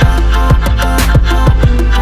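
Background music: a hip-hop beat with a heavy, constant bass and regular drum hits, without vocals.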